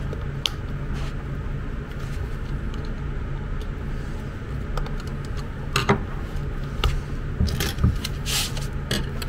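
A screwdriver prying at the plastic housing of a hospital bed's hand remote: scattered sharp plastic clicks and scrapes, several close together about seven to eight and a half seconds in, over a steady low background hum.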